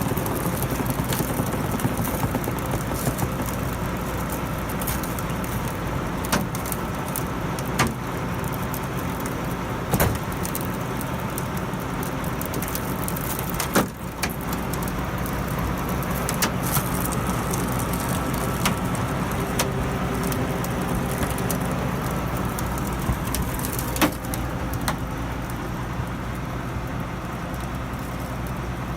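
An engine running steadily, with several sharp knocks or clacks along the way.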